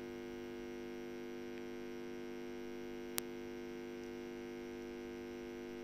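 Low, steady electrical hum of a neon sign, several tones held together, with a single sharp click about three seconds in.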